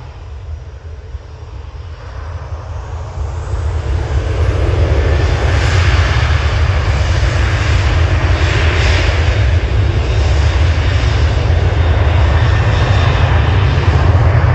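Ryanair Boeing 737's jet engines spooling up for the takeoff roll, building over the first four to five seconds into loud, steady jet noise: a deep rumble with a hiss above it.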